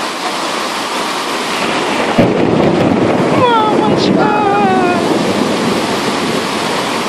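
Heavy rain pouring down on a flooded street, a dense steady hiss of downpour and rushing floodwater. A single knock about two seconds in.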